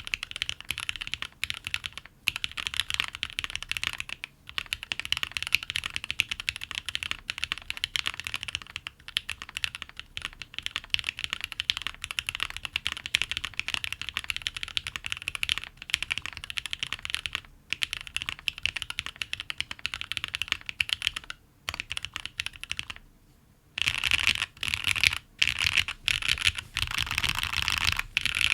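Fuji65 mechanical keyboard with Gateron Cap Milky Yellow linear switches, an aluminium plate and GMK keycaps being typed on fast and continuously: a rapid stream of keystroke clacks. The typing pauses for about a second near the end, then resumes.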